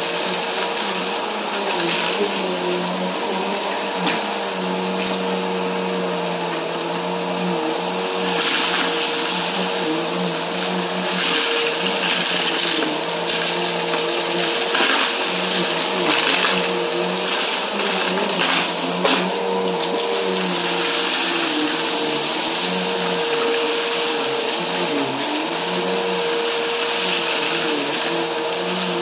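Stick vacuum cleaner running steadily as its head is pushed back and forth over a carpeted mat, picking up fine dirt. Its motor hum wavers a little in pitch and the suction hiss swells at times, with a few sharp clicks.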